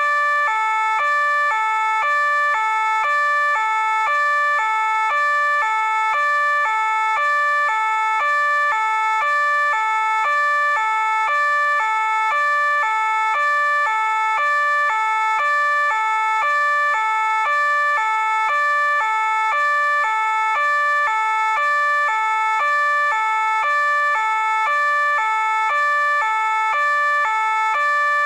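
French police two-tone siren sounding continuously, alternating steadily between a higher and a lower note at an even loudness.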